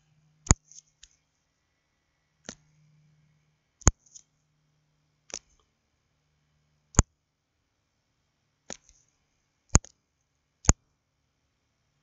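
Computer mouse clicking: about eight single sharp clicks at uneven intervals.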